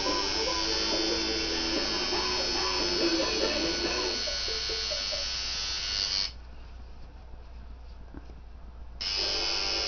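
Tattoo machine buzzing steadily while tattooing skin; it stops abruptly about six seconds in and starts buzzing again about three seconds later.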